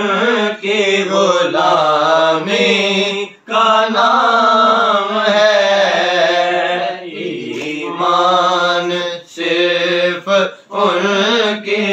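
A man singing a naat unaccompanied, in long held notes that waver in pitch, with a few short breaks for breath.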